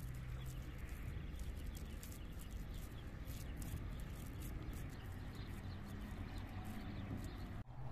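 Wet, sticky clicks and squelches of hands pressing a ground-meat and rice mixture closed around a filling to shape a stuffed meatball, over a low steady hum.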